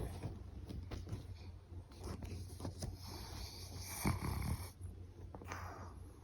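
Pekingese dog snoring in irregular breaths, the loudest snore about four seconds in.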